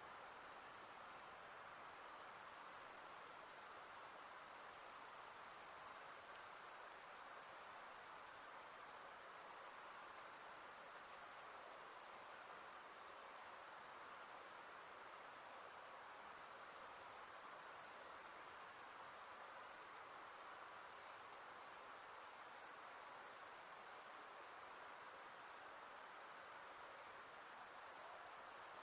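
Dense, steady chorus of night insects, a continuous high-pitched trilling that never breaks, over a faint low hiss of forest ambience.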